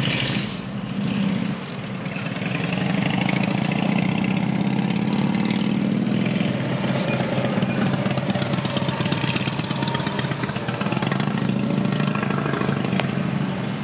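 Engine of a moving road vehicle running steadily, a low hum under a hiss of road and wind noise, growing louder about two seconds in.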